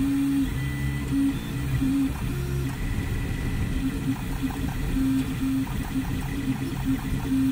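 FDM 3D printer printing: the stepper motors sound in short, changing-pitch tones that start and stop with each move of the print head, over the steady whir of the hotend and part-cooling fans.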